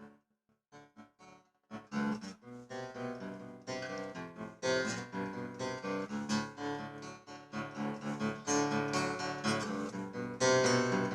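Acoustic guitar strumming chords, starting about two seconds in after a few faint short sounds, and continuing steadily.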